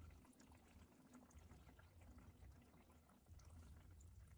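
Faint splashing and trickling of used engine oil pouring from the open drain hole of a 2018 Honda Accord 1.5T's oil pan into a drain pan, over a low, steady hum.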